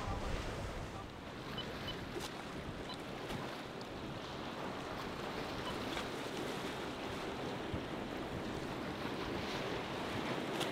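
Steady rush of surf and choppy water with boats running through it, and wind on the microphone.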